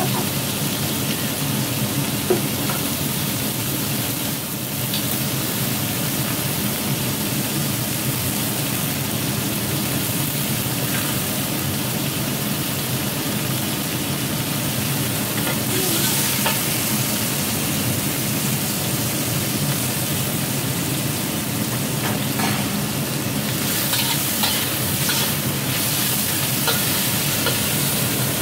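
Squid pieces sizzling in oil in a hot wok as they are stir-fried. A metal spatula scrapes and clinks against the wok, with a run of sharp clicks near the end.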